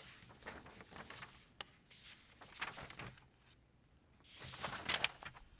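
Paper notebook pages being turned by hand, about three page flips, each a short crisp rustle of paper.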